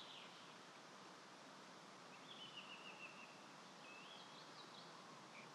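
Near silence: faint outdoor ambience with a few faint bird chirps. A quick series of notes comes about two seconds in, and short rising chirps follow a second or so later.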